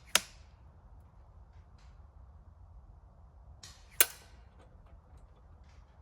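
Two shots from a Novritsch SSG96 spring-powered bolt-action airsoft sniper rifle set to 3.0 joules, a sharp crack near the start and another about four seconds later, each with a brief softer noise just before it. A few faint clicks follow the second shot.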